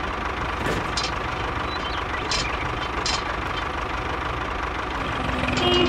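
Tractor engine idling steadily with a knocking beat, with a few light clicks as the toy trailer's drawbar is hooked onto the hitch pin.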